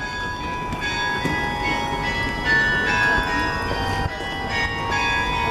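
Church bells of the Church of Our Saviour ringing from the spire. Several bells at different pitches strike and ring on in turn, overlapping, over a low street rumble.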